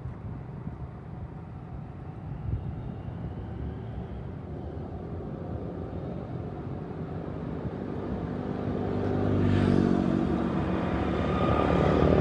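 Road traffic: a car's engine and tyre noise over a steady low rumble, growing louder through the second half and loudest near the end.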